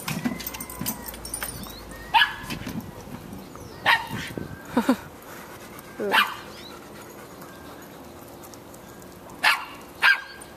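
Small dog barking in short, sharp, high-pitched yaps, about seven of them at irregular intervals, with a pause of about three seconds in the middle.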